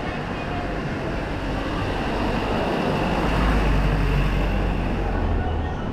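A large vehicle passing close by: a low rumble over general traffic noise swells about three seconds in and drops away just before the end.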